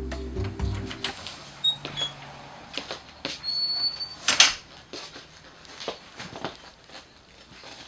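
Music that stops abruptly about a second in, then scattered knocks, clicks and rustles of someone moving about a room and handling furniture, with one sharp, louder knock about halfway through and a few faint, short squeaks.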